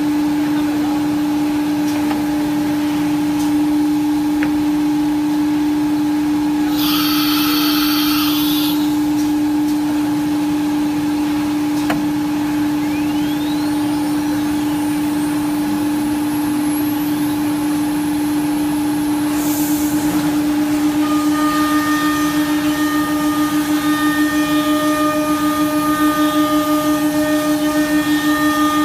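CNC wood router's spindle running with a steady high whine while it routes door-panel profiles into an MDF sheet, its dust extraction running underneath. A hiss of about two seconds comes about seven seconds in. From about twenty seconds in, higher tones join and the sound pulses as the cut goes on.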